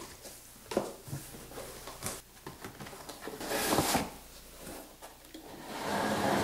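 Cardboard shipping box being opened by hand: flaps pulled apart with scraping, rustling and a few light knocks, then a longer rustle of cardboard and foam packing about three and a half seconds in, and more rubbing near the end as hands reach in among the foam blocks.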